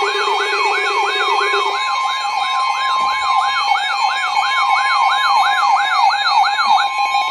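Emergency alert siren tones: a rapid warbling siren sweeping down in pitch about three times a second over a steady high alert tone, with a lower tone dropping out about two seconds in. The sweeps stop near the end while the steady tone holds on. This is the attention signal opening a severe thunderstorm warning broadcast.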